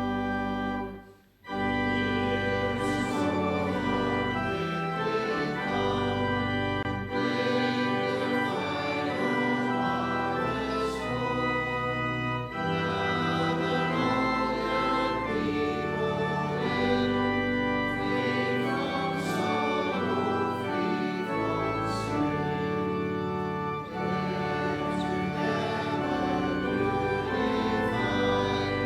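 Church organ playing a hymn in sustained chords, with a brief break about a second in before the music resumes.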